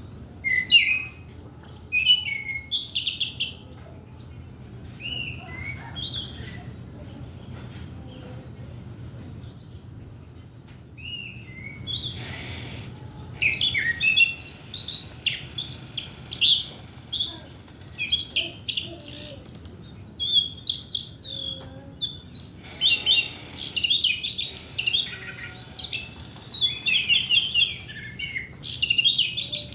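Chestnut-capped thrush (anis kembang) singing a fast, varied song of high chirps, trills and short whistles. It comes in bursts, thins out for several seconds early on and then runs densely through the second half. This is the kind of song played as a lure to stir untrained male birds into singing.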